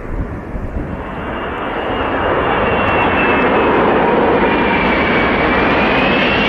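Airbus A380 four-engine jetliner on low landing approach, its engines growing louder over the first few seconds as it nears. A high engine whine comes in above the dense jet noise and dips slightly in pitch before rising again.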